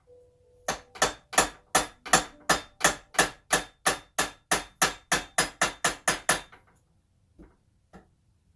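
Bearing hammer striking metal in a quick, steady run of about eighteen blows, roughly three a second, knocking a part out of a mountain bike frame. Near the end come two faint knocks.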